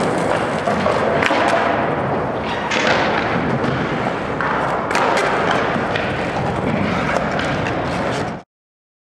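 Skateboard wheels rolling on smooth concrete, with several sharp wooden clacks and thuds as the board is flipped and landed during freestyle kickflips. The sound cuts off suddenly near the end.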